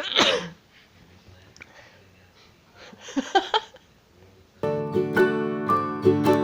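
A woman sneezes sharply right at the start, the sound falling in pitch, and a second short vocal burst follows about three seconds later. Plucked-string music, mandolin- or banjo-like, then starts loud about four and a half seconds in.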